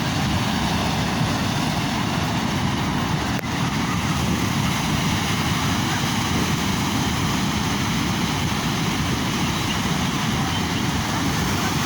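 Sea waves and surf rushing steadily, a continuous, even roar of water with no separate breakers standing out. It drops out very briefly about three and a half seconds in.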